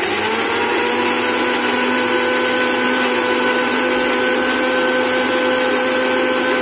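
Electric mixer-grinder running at full speed, its motor whining up to speed at the start and then holding a steady pitch, grinding whole spices, coconut and fried onion with a little water into a wet paste.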